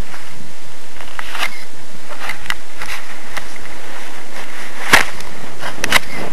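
Blizzard wind rushing over the camera's microphone as a steady hiss, with scattered crackles and a sharp knock about five seconds in.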